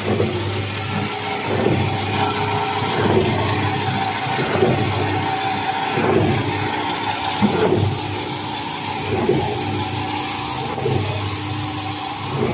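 Band-saw paper roll cutting machine running: a steady electric motor hum with a blade whine, swelling about every second and a half as the blade slices through a kitchen-towel paper log.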